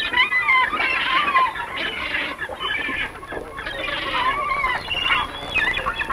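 A flock of birds calling, many short calls overlapping and rising and falling in pitch.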